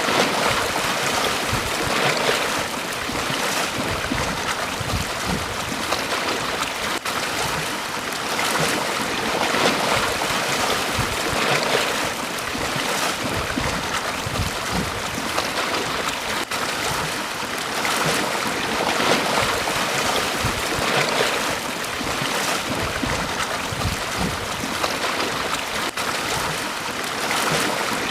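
Small sea waves breaking and washing up a beach: a continuous rushing wash that swells every few seconds as each wave comes in.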